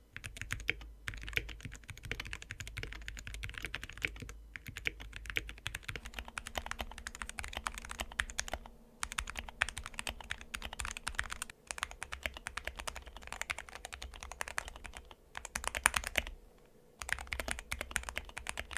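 Fast, steady typing on an Epomaker SK68 mechanical keyboard with optical switches, in several takes broken by short pauses about 9, 11.5 and 16.5 seconds in. These are typing sound tests of the board before and after its case was filled with Play-Doh and left for a year.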